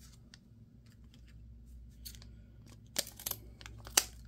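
Trading cards being handled, with a few light clicks and taps; the sharpest come about three and four seconds in, with quiet between.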